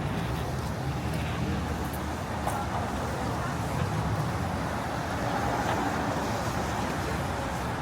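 Street traffic noise: a steady low rumble of passing vehicles with a general city hum.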